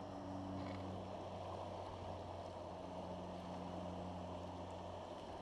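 Steady rush of flowing river water, with a steady low hum underneath.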